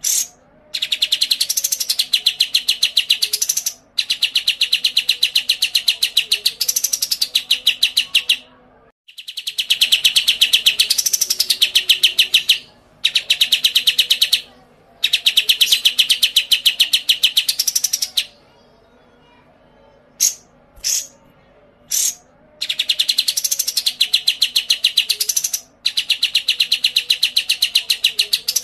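Songbird singing in long, rapid trills of quick repeated notes, each run lasting about three to four seconds with brief pauses between. A few sharp single chirps come at the start and again a little after two-thirds of the way through, after a longer pause.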